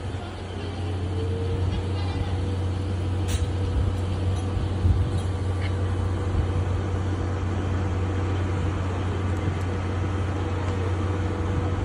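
Steady low mechanical hum of a train at a station platform, with a faint steady whine held from about a second in until near the end and a few light knocks.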